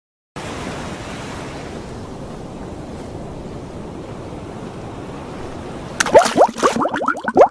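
Ocean surf rushing steadily. About six seconds in, a sudden run of bubbling gurgles with quick rising pitches sets in and continues.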